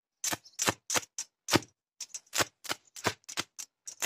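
Electric welding arc from a homemade mains-powered welder crackling in short, sharp, irregular pops, about a dozen, as the welding rod is struck against a steel strip and the arc catches and breaks again.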